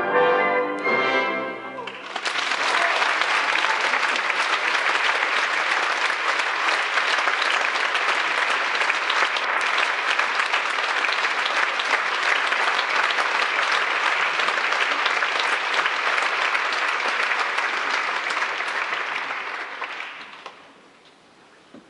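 Orchestral music with brass ends about two seconds in. An audience then applauds steadily, and the applause dies away near the end.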